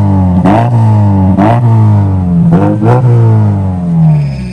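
Mazda 6 engine free-revved through its modified exhaust with an added vacuum-actuated valve: about four quick throttle blips, each jumping up in pitch and falling back, the last one dropping slowly back toward idle near the end.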